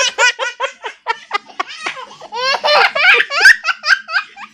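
Toddler laughing hard in rapid, high-pitched bursts, with a longer, louder peal of laughter about two and a half seconds in.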